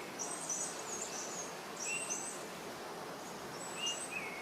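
A bird chirping in short high-pitched phrases, one roughly every two seconds, over a steady background hiss.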